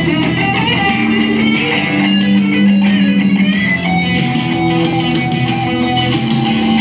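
Live band music led by electric guitar, with regular sharp percussive hits.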